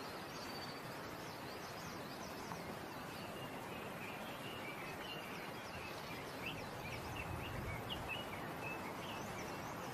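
Mountain forest ambience: a steady, even hiss with scattered faint, high chirps starting about three seconds in.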